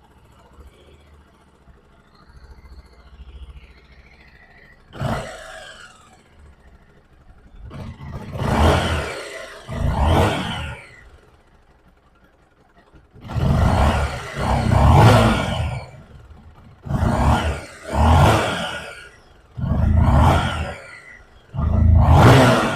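Honda XRE 300 single-cylinder motorcycle engine idling low, then revved in a series of short throttle blips. The engine has a noise that the mechanic traces to a worn, slack cam chain.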